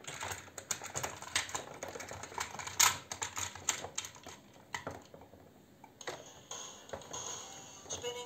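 Hard plastic toy parts clicking and knocking together as a small toy digger is handled and set into a toy crane's plastic carrier: a rapid, irregular clatter with one sharper knock about three seconds in, thinning out over the last two seconds.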